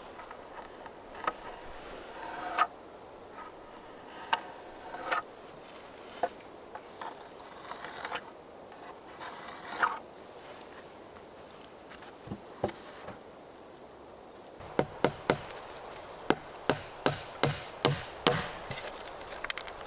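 Wooden boards scraping and knocking as they are handled and marked. About two-thirds of the way in, a claw hammer drives nails into pine boards: about a dozen quick, sharp blows with a faint metallic ring.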